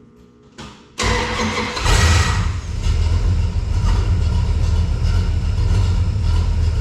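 Dodge D100's 318 small-block V8 starting about a second in, picking up briefly and then running steadily at idle. It is running on a freshly tightened accessory belt and a water pump swapped in from another 318, which the owner suspects as the cause of a new noise.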